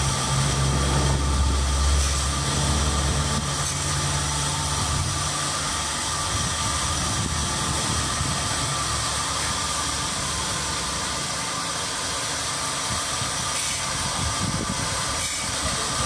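Steady running noise of sawmill machinery, a constant hiss with a few steady high tones. A low engine hum is strong for the first few seconds, then fades.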